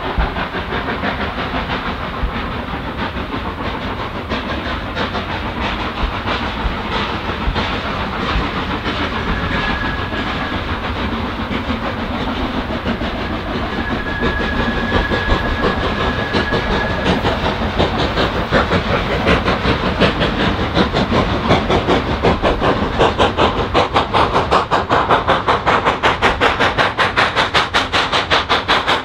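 Steam locomotive Bellerophon, an 1874 Haydock Foundry tank engine, working hard with a rapid, even chuffing exhaust that grows louder as it approaches.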